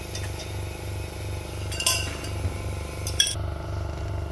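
Small benchtop laboratory vacuum pump running with a low, rapidly pulsing hum as it draws liquid through a sintered glass filter crucible into a filter flask. Sharp clinks of glassware come about two seconds in and again a little after three seconds.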